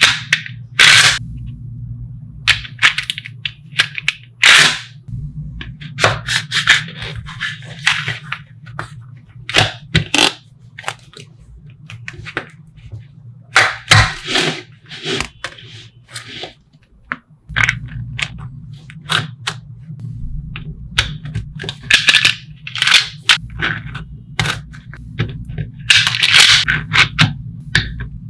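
Small magnetic balls clicking and snapping together as they are handled, with irregular sharp clicks and short rattling clusters of clicks.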